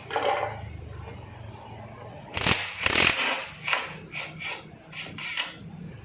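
A series of harsh mechanical rasping strokes: two loud ones about two and a half seconds in, then about six shorter ones in quicker succession. Typical of a hand tool working on metal parts.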